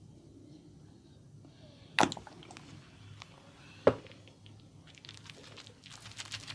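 Barber's hands during an oil head massage: two sharp, loud snaps about two seconds apart, then a run of fine crackling from the hair being worked.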